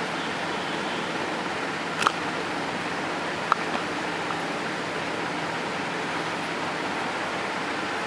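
Steady, even hiss of background noise, with two brief clicks about two and three and a half seconds in.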